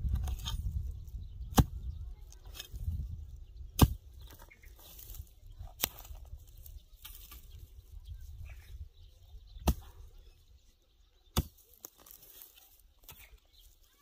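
A long-handled metal hoe chopping into dry, stony soil: five sharp strikes spaced a second or two apart, with faint rustling of dry brush between them.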